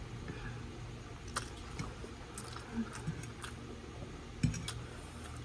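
A person eating pancit canton noodles with a fork: scattered slurps, chewing sounds and light clicks of the fork, with a louder knock about four and a half seconds in. A steady low hum runs underneath.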